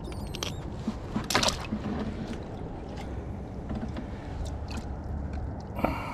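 Herring splashing as they are put into a plastic bucket of water, a few sharp splashes and knocks, the loudest about a second and a half in, over a steady low rumble of surf.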